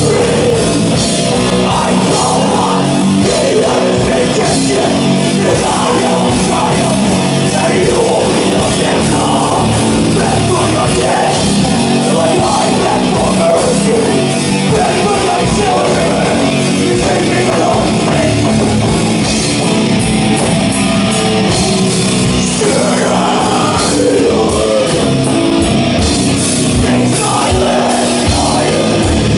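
Extreme metal band playing live: distorted guitars, bass and drum kit at a steady, loud level with no breaks.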